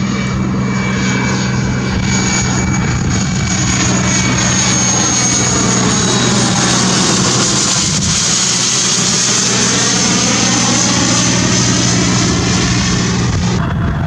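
Twin-engine business jet on landing approach passing low overhead: a steady jet whine with a thin high whistle over a low hum, growing a little louder toward the middle, with a whooshing sweep as it goes over. Near the end the sound changes abruptly to another aircraft.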